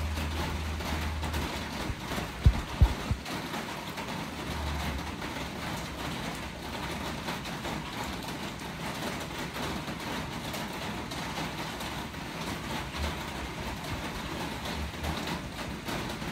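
A steady hiss of background noise, with low rumbling now and then and two dull thumps about two and a half seconds in.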